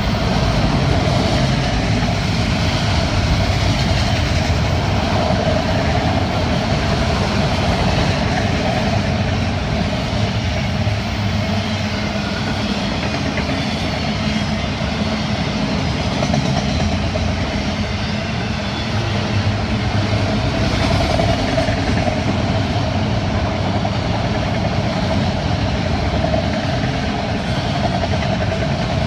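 Florida East Coast Railway freight train's autorack cars rolling past at speed: a steady, loud rumble and rattle of steel wheels on the rails.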